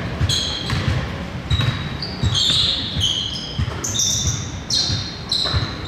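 Basketball game play: sneakers squeaking on the court in many short, high squeaks, over repeated dull thuds of the ball bouncing and of footsteps.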